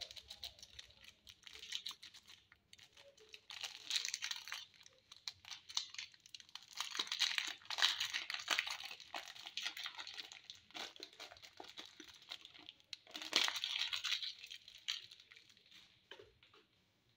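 A plastic-foil candy-bar wrapper crinkling and tearing as it is opened by hand. It comes in crackly bursts, with the loudest a little past the middle and again near the end, then dies away.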